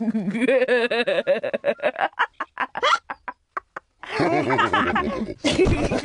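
Cartoon sound effects of a pig character gulping juice down quickly: a rapid run of gulps that thins out into a few separate ones and stops. About four seconds in, a voice follows with giggling and a hiccup.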